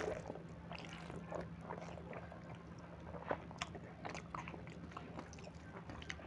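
A person eating rice, dal and greens by hand: chewing and lip smacking in many short irregular clicks, with fingers mixing the food on a steel plate. A steady low hum runs underneath.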